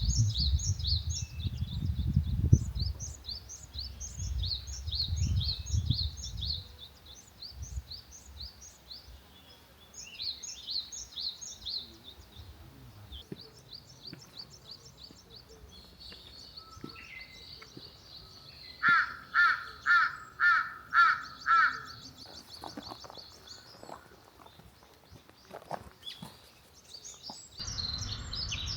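Wild birds singing: quick, high, repeated chirps and a trill. About twenty seconds in comes a run of six loud, evenly spaced calls, the loudest sound here. A low rumble runs under the first few seconds.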